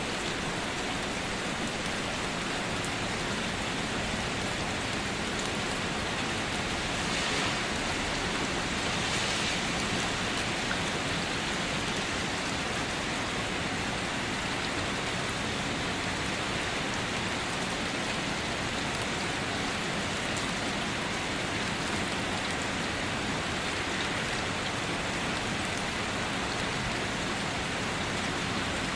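Steady rain falling on a surface, a dense even hiss with scattered drops, swelling slightly a few times.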